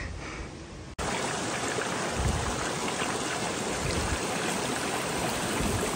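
Shallow creek running over rocks and gravel, a steady even rush of water that starts suddenly about a second in.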